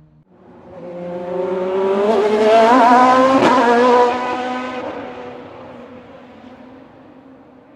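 Race car speeding past: the engine's note swells and rises in pitch as it approaches, peaks loudest about three and a half seconds in, then drops in pitch and fades away as the car recedes.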